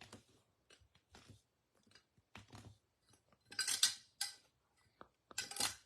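Trading cards and pack wrappers being handled and slid around on a tabletop: a series of short rustles and scrapes, loudest about three and a half seconds in and again just before the end.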